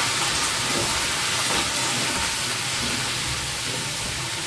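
Chopped vegetables sizzling in hot mustard oil in a steel kadhai, stirred with a spatula: a steady hiss of frying.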